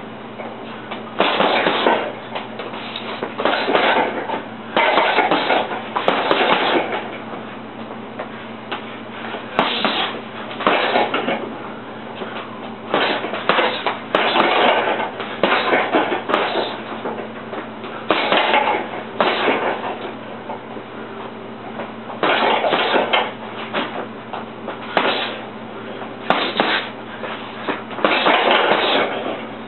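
Boxing gloves punching a hanging heavy bag in short flurries of several quick blows, with pauses of a second or two between combinations. A steady low hum runs underneath.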